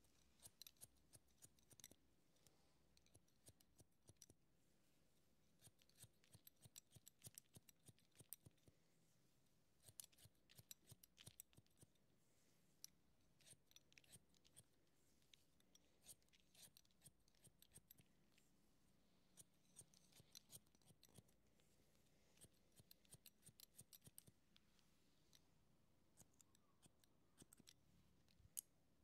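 Barber's scissors snipping through hair, faint, in quick runs of crisp snips broken by short pauses.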